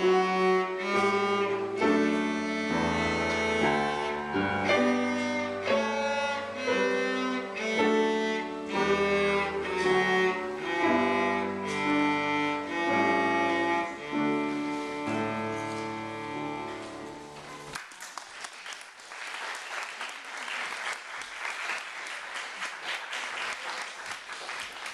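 Cello bowed through a piece of classical music in a run of quick notes, ending abruptly about 18 seconds in. Audience applause follows to the end.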